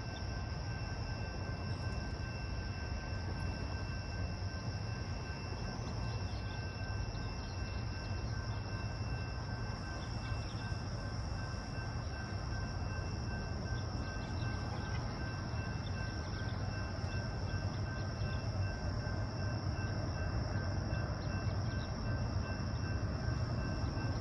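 Steady outdoor evening ambience: a constant low rumble under a continuous high insect drone, with two faint steady thin tones, growing slightly louder near the end.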